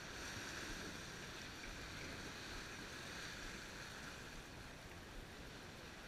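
Water rushing and splashing along the hull of a Gozzard 36 sailboat moving under sail: a steady wash.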